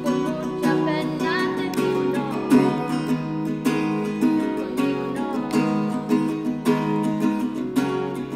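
Acoustic guitar strummed steadily, with a girl singing a melody over it.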